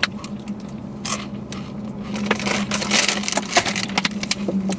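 Crunching of Takis Fuego rolled tortilla chips being chewed, in short irregular crackles, over a steady low hum.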